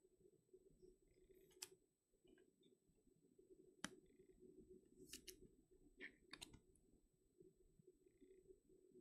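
Near silence over a faint steady hum, with a handful of soft, scattered clicks and rustles from trading cards and foil packs being handled.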